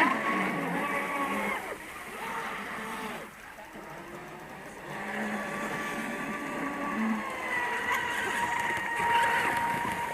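Radio-controlled electric speedboat's motor whining at speed on the water: a high, steady whine that fades a couple of seconds in, comes back about halfway through and holds an even pitch to the end.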